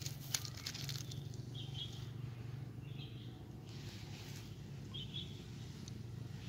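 Quiet outdoor ambience: a steady low hum, with three short, high bird chirps spread through it.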